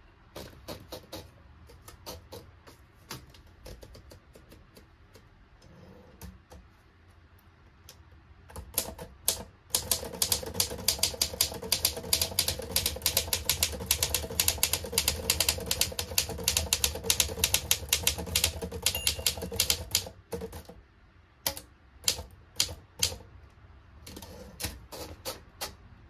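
Torpedo 18b manual portable typewriter being typed on. A few scattered keystrokes come first, then a long run of fast, steady typing from about nine seconds in to about twenty seconds, then scattered strikes again near the end.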